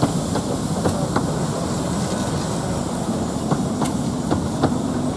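Coaches of a 15-inch-gauge miniature railway rolling slowly past: a steady low rumble from the wheels and bogies, broken by a scatter of sharp clicks as wheels cross rail joints.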